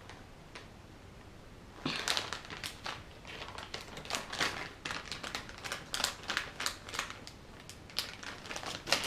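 Plastic packaging of soft-plastic fishing lures crinkling as it is handled, a run of irregular crackles starting about two seconds in.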